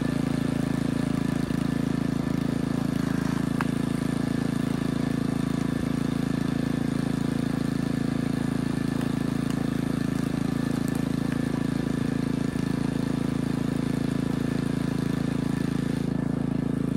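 Small gasoline engine of a Yard Machines 8-ton compact log splitter running steadily with an even hum.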